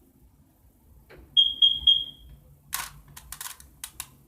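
Three short high electronic beeps in quick succession, the last trailing off, followed by a run of sharp plastic clicks from the Rubik's cube's layers being turned.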